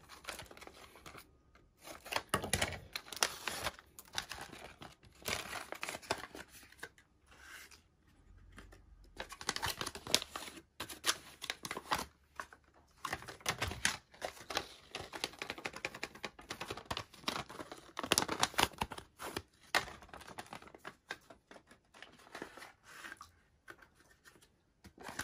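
Paper seed packets being torn open, crinkled and shaken, in irregular bursts of rustling with short pauses between.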